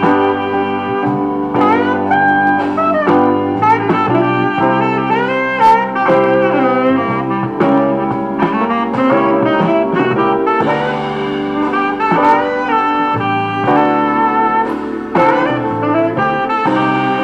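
Instrumental music with a lead melody that slides between notes, playing throughout.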